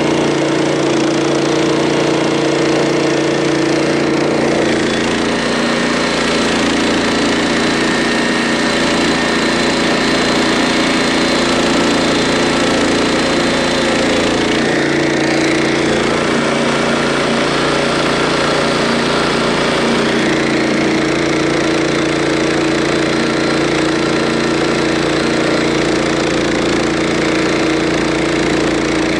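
Harbor Freight band sawmill's small gasoline engine running steadily under load while the band blade cuts along an oak log, its note shifting slightly a few times as the load changes.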